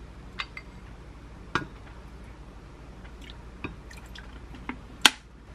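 Kitchen prep sounds at a glass mug of sauce: a few scattered sharp taps and clinks on the glass and small liquid drips as ingredients go in and a wooden spoon stirs them. The loudest is a single knock near the end.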